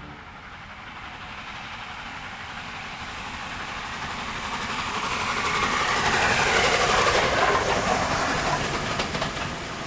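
Steam train passing by, growing louder to a peak about seven seconds in and then fading, with wheels clicking over rail joints near the end.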